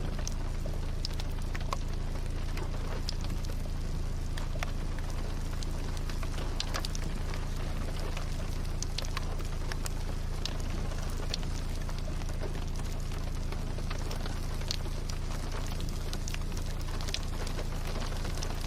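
Rain falling, with scattered irregular drops ticking sharply on a hard surface over a steady low hum.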